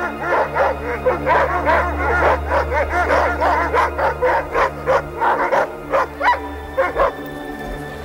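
A team of harnessed sled dogs barking and yelping excitedly in rapid, overlapping high calls. The calls thin out about six seconds in, with a couple of last yelps near the end.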